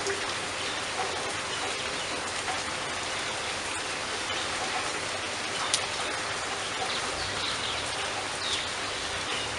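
Steady rainfall, an even hiss of many drops landing on water and leaves, with one sharp click a little after halfway.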